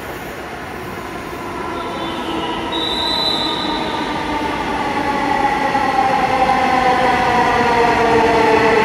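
Dhaka Metro Rail electric train coming into the station and braking, growing steadily louder, its motor whine made of several tones that slide down in pitch as it slows. A brief high squeal sounds about three seconds in.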